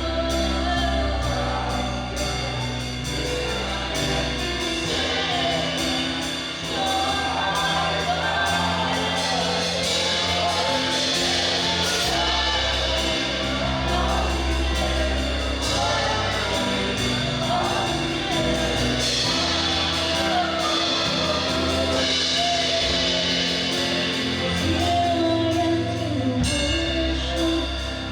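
Live worship band music with singing: sustained bass and keys under a sung melody, with drums.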